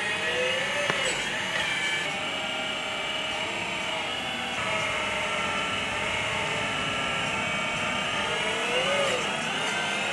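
Electric hydraulic pump of a customized double-pump 1/12-scale metal hydraulic RC excavator (Hitachi 360 model) whining steadily as the arm and bucket cylinders are worked. The whine bends in pitch a few times as the valves load it, most clearly near the start and near the end, with one sharp click about a second in.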